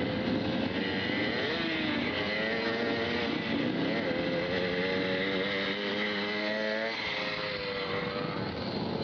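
Several racing sidecar outfits' motorcycle engines running together, their pitch rising and falling as the riders blip the throttles and pull away slowly.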